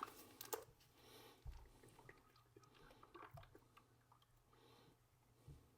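Near silence, with faint scattered clicks and crinkles from a plastic quart bottle of motor oil being emptied into a funnel.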